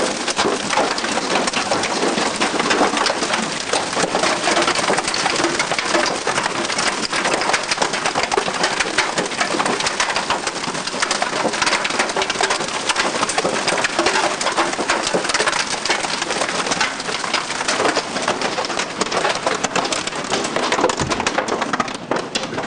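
Hailstorm: hail and rain pelting the ground and house in a dense, steady clatter of countless small impacts.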